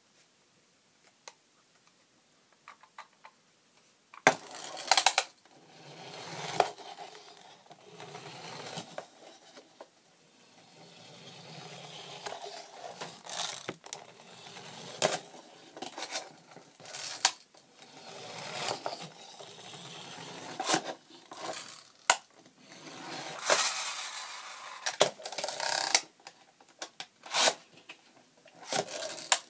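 A small plastic toy being handled on a wooden tabletop: irregular clicks, taps and scraping rattles. They begin about four seconds in.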